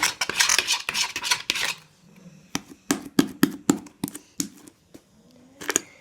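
A mixing utensil scraping and knocking against a bowl as slime is mixed: a dense clatter for about two seconds, then a string of separate knocks.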